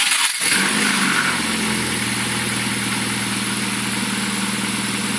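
Rover 1.4 16-valve K-Series engine in a Mini starting up. It catches about half a second in and settles into a steady idle.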